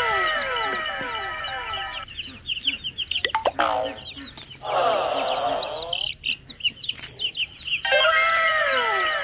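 Chicks peeping in a dense, overlapping chorus of falling chirps, with chickens clucking. The chorus stops abruptly about two seconds in and comes back near the end, like an edited-in recording.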